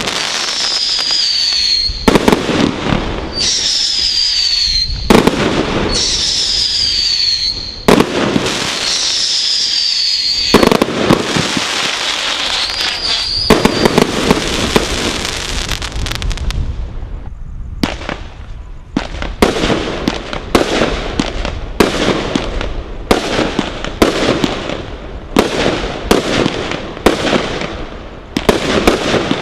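Brothers Pyrotechnics Godfather Display Kit, three linked firework cakes, firing a barrage. In the first half, shots go off about every two seconds, each with a falling whistle and a bang. This is followed by a spell of dense crackling from gold crackling bursts, then, from about two-thirds in, a faster regular run of sharp reports, about three every two seconds.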